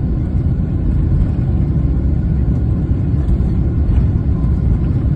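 Steady deep rumble inside the cabin of a Boeing 777-300ER on its takeoff run: the GE90 engines at takeoff power and the wheels rolling on the runway.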